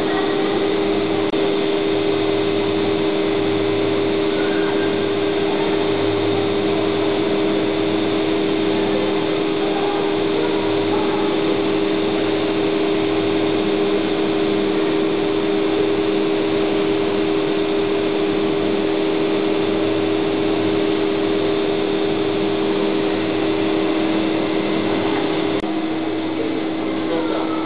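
Steady mechanical hum, like a fan or pump, with two steady tones and a lower throb that swells and fades every second or two; the tones stop near the end.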